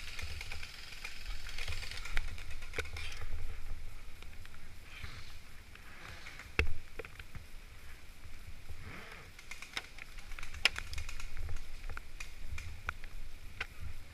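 Scattered sharp cracks of airsoft gunfire, single shots at uneven spacing. The loudest comes about six and a half seconds in, and a cluster follows near the end, over a steady low rumble and hiss.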